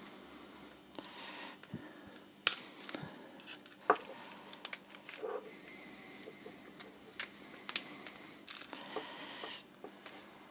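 A plastic opening tool prying and scraping along the edge of a BlackBerry Z10's plastic back plate, with a run of sharp plastic clicks and snaps as the plate's clips work loose, the loudest about two and a half seconds in.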